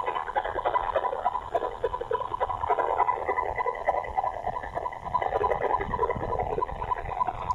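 Unidentified interference (QRM) received on the VHF band, played through a Malachite DSP software-defined receiver: a continuous warbling, bubbling noise that flickers rapidly, with a steady thin whistle running through it.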